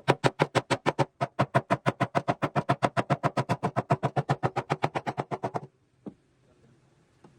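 Background music: a fast, evenly gated stutter of distorted synth or guitar hits, about nine a second, that cuts off suddenly near the end.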